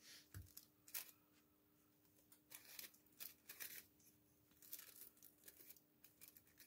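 Faint rustling and crinkling of thin paper handled by hand, with a few soft clicks scattered through it.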